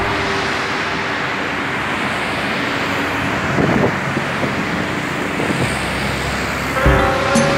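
Road traffic noise from cars passing on a city roundabout, with a car going by about three and a half seconds in. A music track comes back in near the end.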